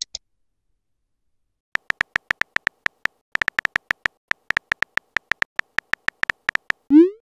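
Texting app's synthetic keystroke sound: quick runs of short, identical high beeps, several a second with brief pauses, as a message is typed. A short rising swoosh comes near the end as the message is sent.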